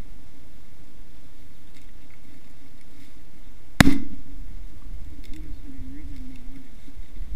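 A single shotgun shot about four seconds in, at a Canada goose coming in over decoys, over a steady background hiss.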